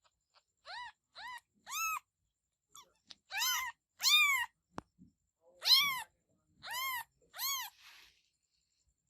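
Kitten meowing, about eight short, high-pitched meows in a row, each rising then falling in pitch; the first three are softer and the later ones louder.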